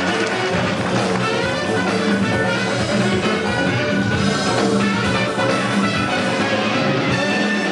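Loud, brassy show music in a jazz style.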